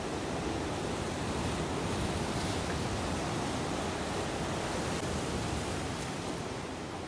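Sea surf: waves breaking and washing in as a steady rush of noise, with wind rumbling on the microphone.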